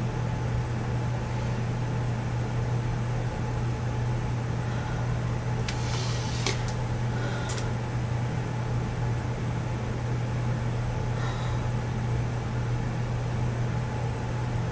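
Steady low hum under an even hiss, like a fan or room noise, with a few faint clicks about six seconds in, again a second or so later, and near eleven seconds.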